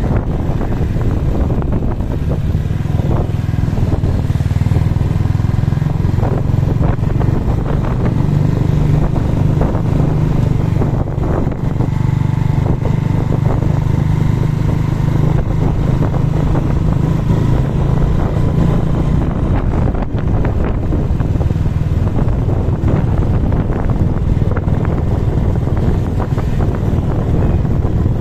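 Motorcycle engine running steadily under way, with wind rushing over the microphone; the engine hum eases off about two-thirds of the way through.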